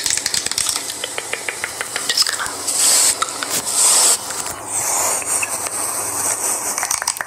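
ASMR sound track of rapid light clicks and taps, with two short hissing bursts about three and four seconds in and a softer swish about five seconds in.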